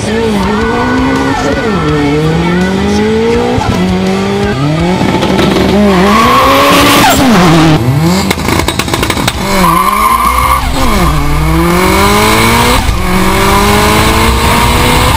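Tuned turbocharged flat-four of a Subaru Impreza WRX STI (GRB), about 775 PS, accelerating hard through the gears. Its pitch climbs, falls at each upshift and climbs again, over and over, with a brief rushing noise around seven seconds in.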